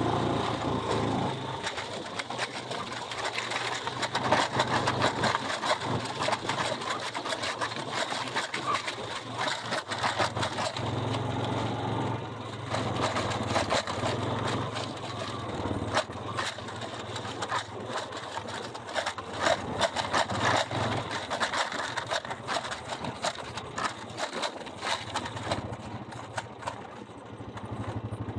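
Vehicle engine running steadily while driving, with frequent rattles and knocks over the top.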